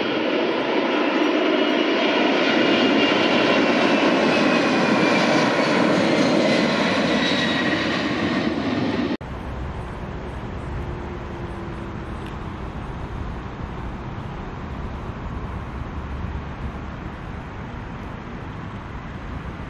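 Four-engine Boeing 747 freighter's jet engines at takeoff power as it climbs out close by: loud rushing jet noise with a whine that slides down in pitch. About nine seconds in it cuts off abruptly to a much quieter steady low rumble.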